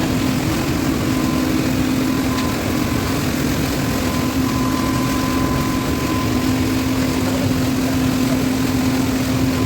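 Asphalt plant machinery running steadily: an even mechanical rumble with a constant hum that does not change.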